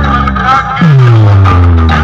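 Loud DJ dance music with a deep bass drop that slides down in pitch about a second in and then holds, under a wavering high melody.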